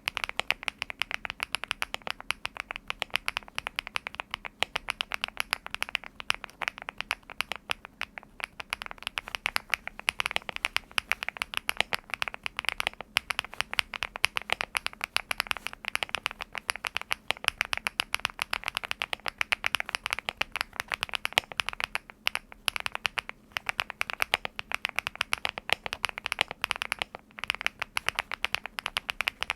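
Fast continuous typing on a LEOBOG Hi75 aluminium-case mechanical keyboard with factory-lubed HMX Xinhai linear switches: a dense stream of keystroke clacks with a few brief pauses.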